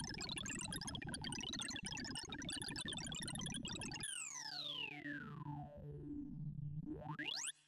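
ArrayV sorting-algorithm sonification of a counting sort on 2,048 values, each array access sounding a short synthesizer tone whose pitch follows the value. For about four seconds there is a dense scatter of random pitched blips while the shuffled values are counted. Then a falling glide of tones plays as the sorted values are written back from the highest down, and near the end a fast rising sweep runs as the finished array is checked, cutting off abruptly.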